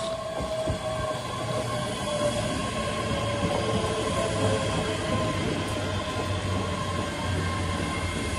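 ScotRail Class 385 electric multiple unit running into a station platform to stop: a steady rumble of wheels on rails that builds over the first second, with a whine that slowly falls in pitch as the train slows.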